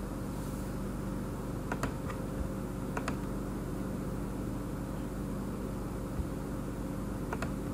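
Computer mouse clicks over a steady low hum. The clicks come in quick pairs about two seconds in, about three seconds in, and near the end.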